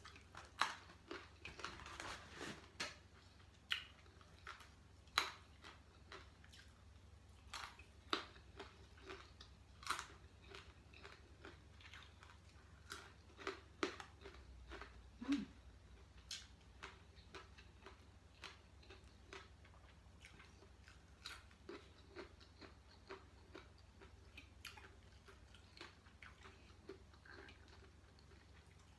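A person chewing mouthfuls of sticky rice and crisp raw vegetables close to the microphone: quiet, irregular crunches and wet mouth clicks, busiest in the first few seconds.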